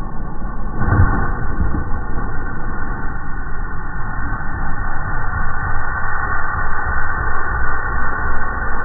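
Four-wheeler (ATV) engine running as it rams and bursts a snowman, played back slowed down so it comes out as a deep, steady rumble, with a heavier thump about a second in.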